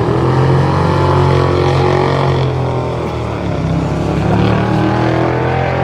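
A car engine running loud and steady at low speed, its note dipping slightly about three seconds in and then holding again.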